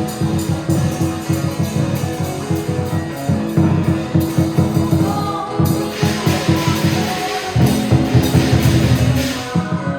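Dragon dance music driven by fast, dense drum strokes over a held low note; from about six seconds in, a wash of cymbals joins in, then drops away just before the end.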